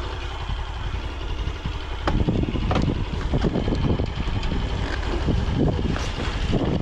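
Motorcycle running along a rough sand-and-gravel dirt track, with wind buffeting the microphone and frequent short knocks and rattles from about two seconds in.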